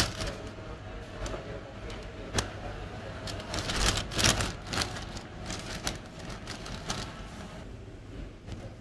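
A brown paper bag crinkling loudly as it is handled at the start, then scattered sharp rustles and knocks from handling, over a steady faint hum.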